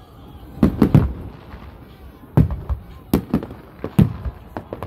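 Aerial fireworks shells bursting in a rapid, irregular series of sharp booms: a cluster of three about a second in, then more spread through the rest, each trailing off in a short rumble.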